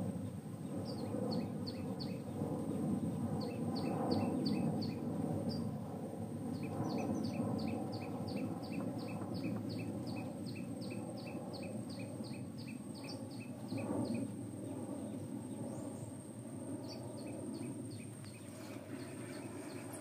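A bird calling in runs of short, high, falling chirps, about three a second, over a steady low background rumble.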